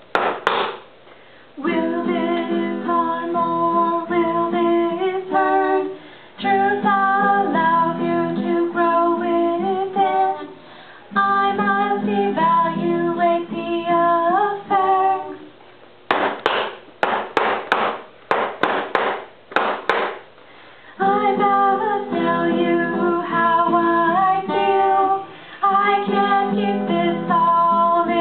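Acoustic guitar strummed while women sing a song, in phrases of a few seconds with short breaks between them. Near the start and again around two-thirds through, a stick beats out a run of sharp knocks, about two a second.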